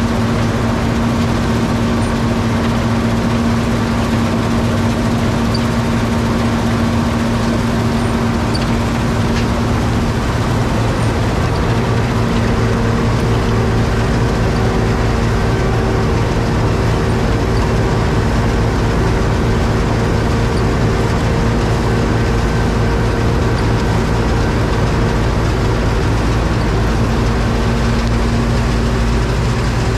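John Deere 7720 Turbo combine running steadily as it harvests wheat: the hum of its turbocharged 466 cubic inch six-cylinder diesel engine together with the threshing machinery. A second, higher tone joins about eleven seconds in.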